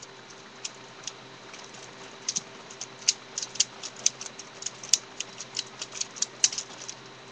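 Plastic Lego pieces clicking and clacking as a Lego-built butterfly knife is flipped open and shut by hand: sharp, irregular clicks, sparse at first and coming faster from about two seconds in.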